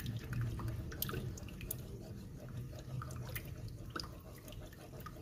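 A spoon stirring yeast and water together in a mixing bowl: liquid swishing, with light scattered clicks of the spoon against the bowl.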